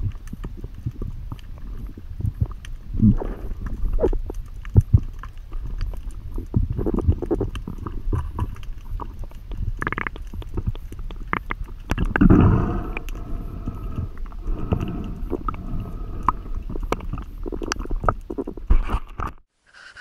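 Muffled underwater sound through a diving camera's housing: a low rumble of moving water with many small clicks and gurgles as the diver swims holding his catch, and a brief hum about twelve seconds in. It cuts off suddenly near the end.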